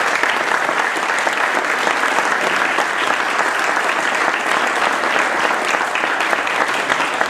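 Audience applauding steadily in a large room, many people clapping at once.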